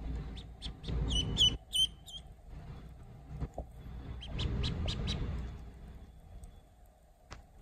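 Duckling peeping: a quick cluster of short high peeps about a second in, then a softer run of peeps around four to five seconds, over a low rumble.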